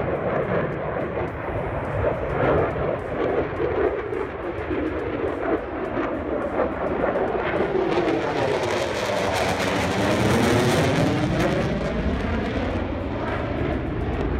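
Fighter jet's engine noise during a flying display, a steady rushing that swells to its loudest about ten seconds in as the jet passes, with a sweeping, phasing sound as it goes by.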